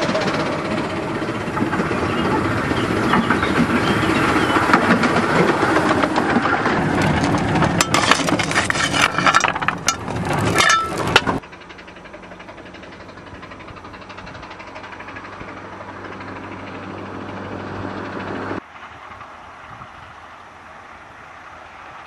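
A 1964 Guest-built 15-inch gauge steam locomotive and its carriages passing close, loud and busy, with a run of sharp clicks from the wheels just before the sound cuts off suddenly. After the cut there is a much quieter, steady low hum of the train running far off.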